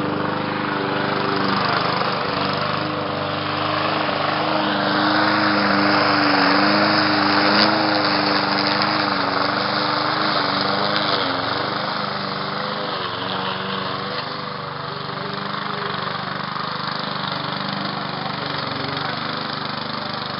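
Briggs & Stratton lawnmower engine running steadily, its pitch wavering slightly and its level rising and falling gently as it is worked.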